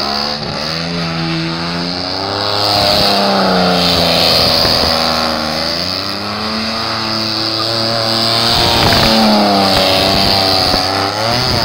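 Pickup truck engine revving up and down several times while the rear tires spin and squeal on pavement.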